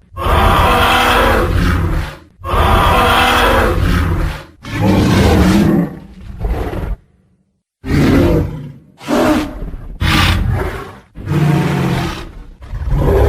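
Tyrannosaurus rex roar sound effect: a series of loud, deep roars and growls, each a second or two long, with a brief silence about seven seconds in.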